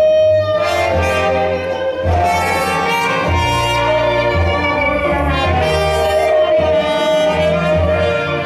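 Jazz-blues band music: horns play a held melody line over a moving bass line.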